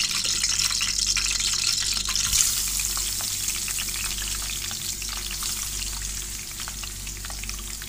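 Sliced onions hitting hot oil in a pan and frying, with a steady hiss full of small crackles. The sizzle flares loudest about two seconds in as the onions go in, then settles to an even frying sound.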